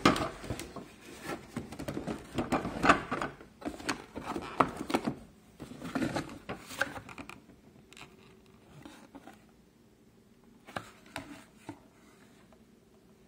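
Plastic drywall taping tool being handled in and out of its cardboard box: irregular rubbing, rustling and light knocks, busiest in the first half, then a few scattered clicks.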